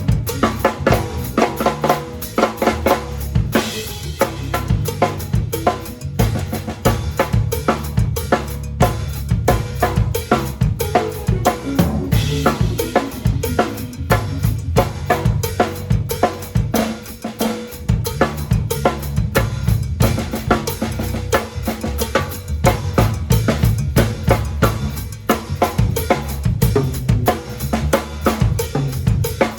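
Drum kit played in a dense, steady groove of bass drum and snare hits with rimshots.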